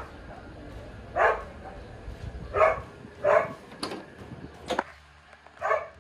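A dog barking repeatedly, short single barks about once a second.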